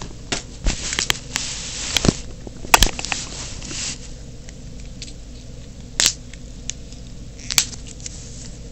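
Paper pieces being handled and arranged: scattered rustling and crinkling with sharp clicks and light knocks. The loudest knock comes about three seconds in, with a few more near the middle and toward the end.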